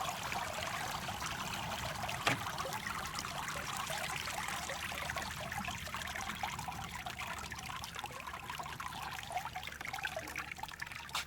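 Water draining out of a lifted robotic pool cleaner back into the pool, a steady trickle that slowly tapers off, with one light knock about two seconds in.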